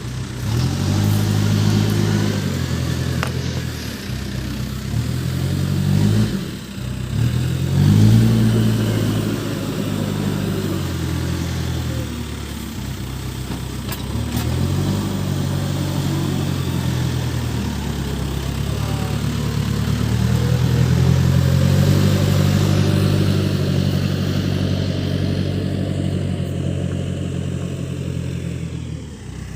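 Case backhoe loader's diesel engine working, its revs rising and falling repeatedly as the machine is worked under load.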